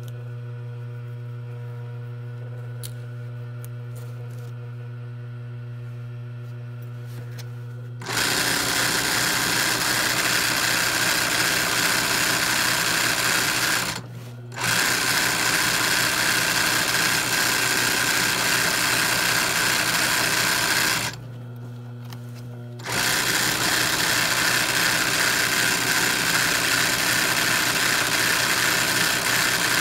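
ROYAL industrial sewing machine doing machine embroidery: its motor hums steadily for about eight seconds, then the needle runs fast in three long stretches of stitching, broken by two short pauses where only the hum remains.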